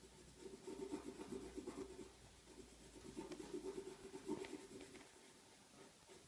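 Coloured pencil shading on paper in quick back-and-forth scribbling strokes, faint, thinning out about five seconds in.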